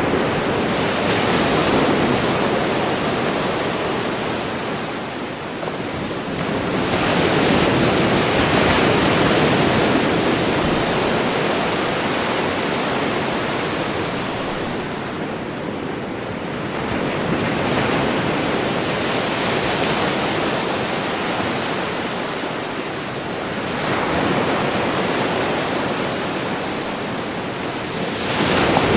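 Sea waves breaking and washing on a shore, a steady rush of surf that swells with each wave about every seven or eight seconds.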